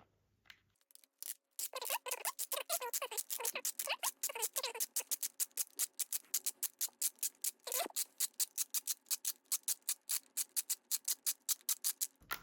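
Thumbwheel of a reloaded Kodak FunSaver disposable camera being turned to wind on the film, ratcheting in a fast, even run of clicks, about six a second, with some squeaking in the first few seconds. The clicking is normal while the film winds on.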